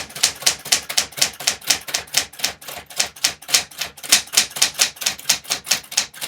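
Typewriter being typed on fast: a steady run of sharp key strikes, about five a second.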